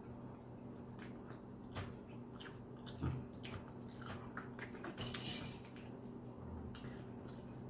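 Chewing steak with bare gums: scattered soft wet mouth clicks and smacks over a steady low hum.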